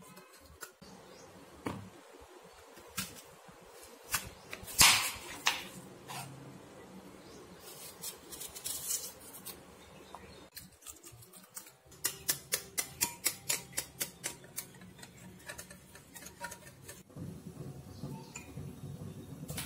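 A kitchen knife knocking on a bamboo cutting board as fruit is sliced, a few separate knocks with the loudest about five seconds in. Later a wire whisk beats eggs and milk in a glass bowl: a quick, even run of clicks, about four a second.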